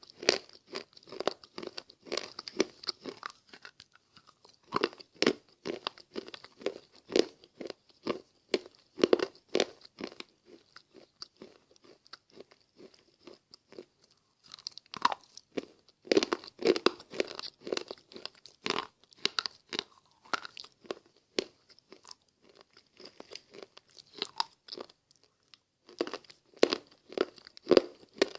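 Close-up crunching and chewing of slate pencils: sharp cracking bites and rhythmic chewing in bursts, with a few short lulls between them.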